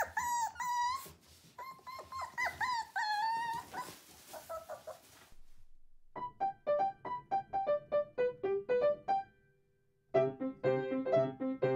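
American Cocker Spaniel puppies whining in short, high-pitched whimpers for the first four seconds or so. About six seconds in, a piano melody starts; it pauses briefly and comes back fuller near the end.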